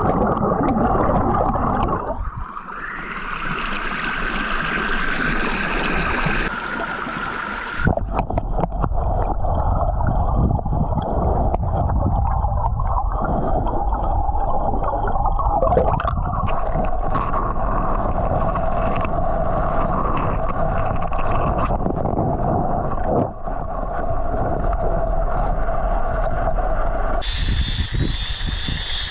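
Muffled water noise picked up by a camera submerged in flowing floodwater: a dense rumble with gurgling. The sound changes abruptly a few times.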